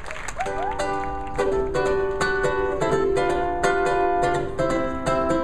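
Strummed acoustic string instrument playing a steady rhythmic chord pattern, the instrumental intro of a song, starting about half a second in.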